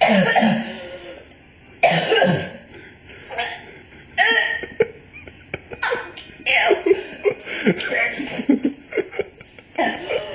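A woman coughing hard after trying to swallow a spoonful of dry ground cinnamon: harsh hacking coughs about every two seconds, then a quicker run of smaller coughs, as the powder chokes her.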